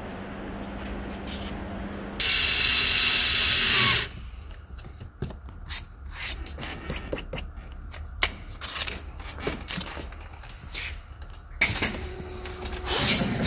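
A handheld power tool, like a cordless drill or screwdriver, runs in one loud burst of about two seconds, its pitch dropping slightly as it stops. Then come scattered clicks and knocks of trim parts being handled and fitted in a truck cab's interior.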